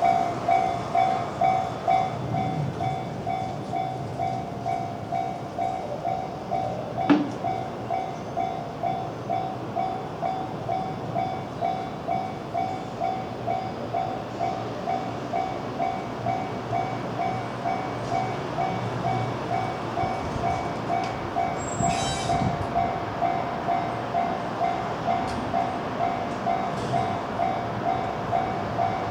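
Japanese level-crossing alarm bell ringing steadily, a two-tone electronic clang about twice a second, as a train is due. A low train rumble runs beneath it, with a sharp click about seven seconds in and a brief high squeal about twenty-two seconds in.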